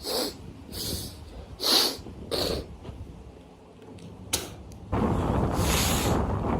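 A man snorting and spitting: four short, sharp bursts of phlegm-clearing in the first two and a half seconds, the third the loudest. About five seconds in, a steady rush of noise begins and runs on.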